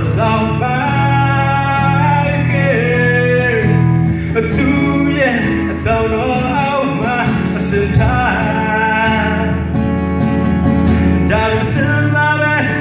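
A man singing a melody into a handheld microphone over a steady instrumental accompaniment.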